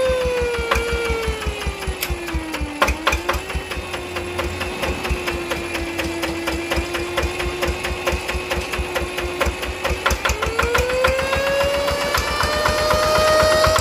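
Yanmar TF65R-di single-cylinder diesel running with a steady stream of firing knocks, overlaid by the fitted 'nging' whine. The whine drops in pitch over the first few seconds, holds a steady note, then climbs again from about ten seconds in.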